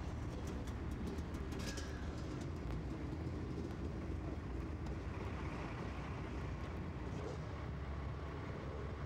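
Dirt bike engines running, a steady low rumble with a few faint clicks near the start.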